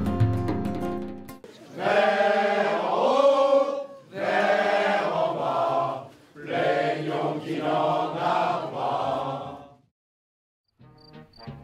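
Guitar-led music ends about a second in, then a group of voices sings unaccompanied in three phrases. After a second of silence near the end, new plucked music starts.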